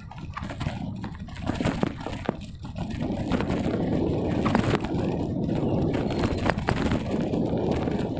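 Wind rushing over the microphone of a camera on a moving bicycle: a steady low rumble with a few brief knocks and rattles along the way.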